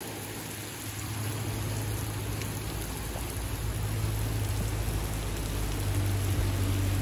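Heavy rain falling on a wet, puddled concrete forecourt: a steady hiss of drops splashing, growing slightly louder, with a steady low hum underneath.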